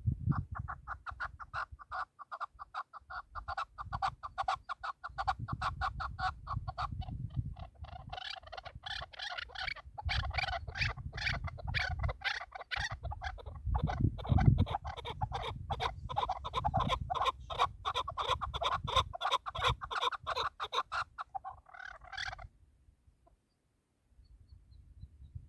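Chukar partridge calling: a long run of rapid, evenly repeated clucking notes that stops suddenly about 22 seconds in. A low rumble comes and goes under it.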